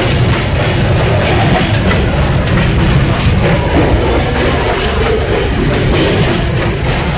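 Passenger train car rolling along the track at speed, a steady rumble of wheels on rail with wind buffeting the microphone in an open car.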